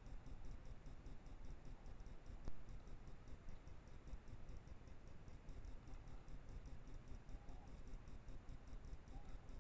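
Trail camera's own recording noise: a steady hiss over a low rumble, with a fast, even electronic ticking high up and one sharp click about two and a half seconds in.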